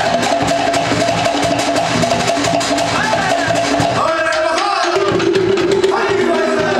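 Polynesian drumming: wooden slit log drums and drums beating a fast, dense rhythm for a drum dance.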